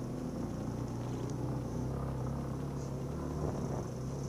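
Yamaha YBR250's single-cylinder four-stroke engine running at a steady, even pitch as the motorcycle rides along a dirt track, with a steady high hiss above it.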